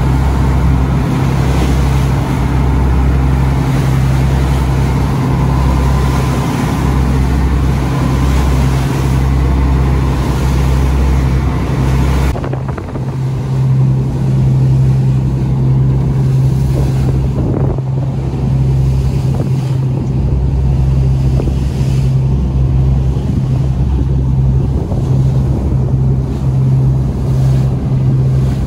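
A tour boat under way at sea: its engine gives a steady low drone, with wind on the microphone and the rush of water along the hull. About twelve seconds in, the wind and water hiss drops away, leaving the engine hum in front.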